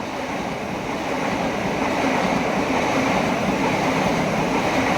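Chinese-built KRL electric commuter train passing, a steady rush and rumble of wheels on rail that grows slightly louder.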